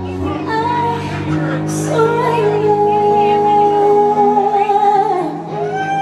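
A woman singing into a microphone over backing music, holding one long note from about two and a half seconds in to past five seconds.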